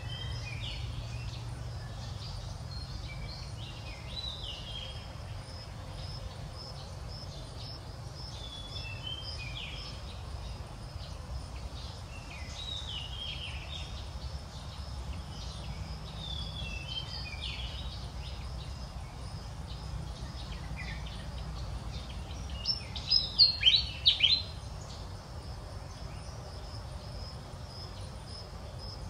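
Outdoor ambience of small birds chirping in short repeated phrases over a steady low rumble and a faint high insect drone. About three-quarters of the way through comes a brief cluster of loud, sharp, high calls.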